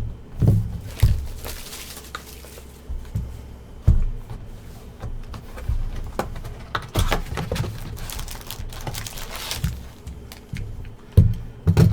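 A trading card box and its packs being handled and unwrapped: a plastic wrapper crinkles and tears in short bursts, with scattered light thuds of cardboard.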